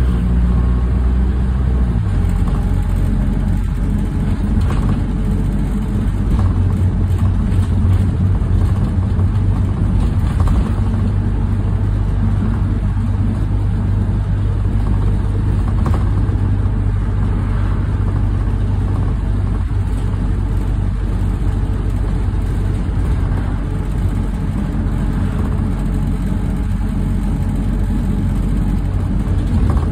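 Diesel engine of a single bus heard from inside the passenger cabin as it drives along, a steady hum; the engine note shifts about two seconds in.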